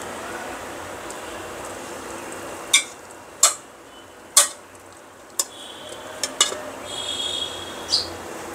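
Metal kitchen utensils clinking against cookware. There are about seven sharp clinks and taps spread over several seconds, and brief ringing scrapes near the end.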